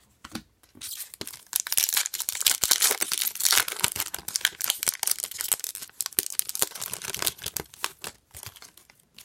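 A 2018-19 O-Pee-Chee hockey card pack wrapper being torn open and crinkled: several seconds of dense crackling that starts about a second and a half in and dies down near the end.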